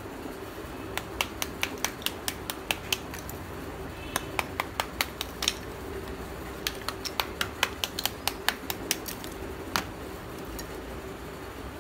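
Small hammer tapping a slab of black roasted multani mitti (fuller's earth clay) to chip off its layers: light, sharp taps at about four or five a second, in three quick runs with short pauses and a last single tap near the end.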